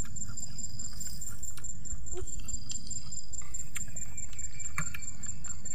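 An insect chirping in a steady, high, evenly pulsed trill over a low background rumble, with a few faint clicks.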